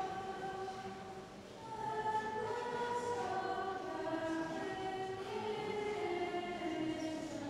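A choir singing slowly in several parts, holding long notes that step from one pitch to the next.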